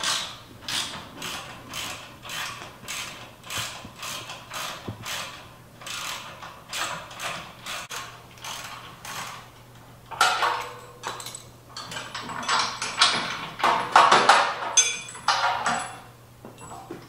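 Hand ratchet wrench clicking in steady back-and-forth strokes, about two a second, loosening the tow hitch bolts. About ten seconds in it gives way to louder, irregular metal clanks and scrapes as the loosened hitch and bolts are handled.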